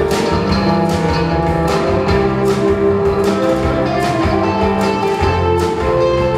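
Live rock band playing: electric guitars over a drum kit keeping a steady beat with cymbal hits.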